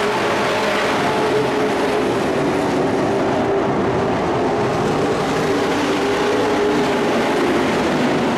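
Several dirt-track race trucks' engines running together on the track, a steady, dense drone.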